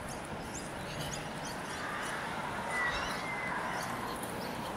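Scattered short bird chirps over a steady background murmur, with one clearer call about three seconds in.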